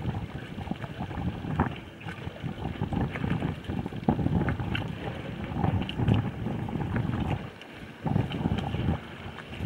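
Wind buffeting the microphone over open water: a rough, gusting rumble that rises and falls, with a brief lull a little before the end.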